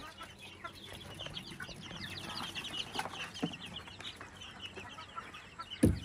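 Flock of farm poultry calling, a dense run of short, high chirps that is busiest through the middle. A loud thump comes near the end.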